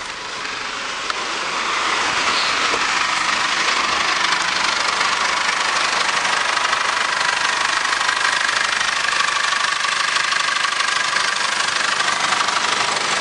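Holden Colorado RG's 2.8-litre four-cylinder turbo diesel engine idling. It grows louder over the first couple of seconds, then holds a steady, even note.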